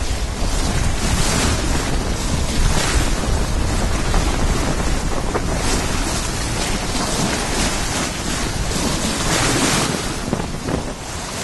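Sea water rushing and splashing along a small sailing boat under way, with heavy wind noise on the microphone. The rush swells in surges every few seconds.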